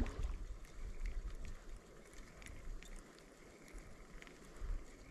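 Faint, steady rushing of river water, with a low rumble dying away in the first two seconds and a few light clicks.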